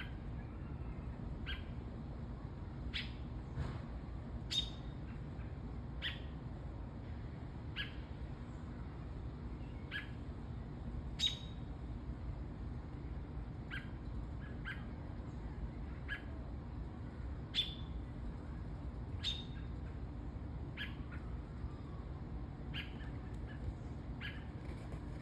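A small bird giving short, sharp single chirps, one every second or two at an uneven pace, over a steady low rumble.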